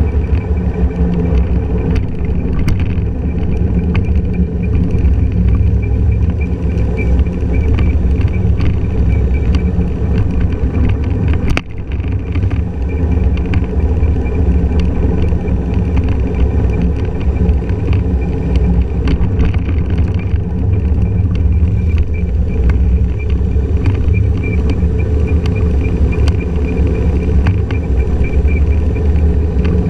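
Honda motor scooter being ridden along a road: steady engine and road rumble picked up by a camera mounted low on the scooter's front, with a brief drop about a third of the way in.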